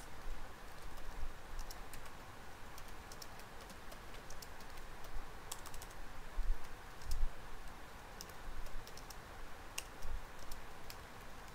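Typing on a computer keyboard: a string of irregular, scattered keystroke clicks over a faint steady hiss.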